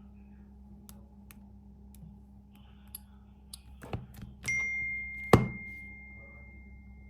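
Light clicks and taps, a knock about four seconds in, then a single high ding that rings on and fades over about two and a half seconds, with a louder knock just after it starts.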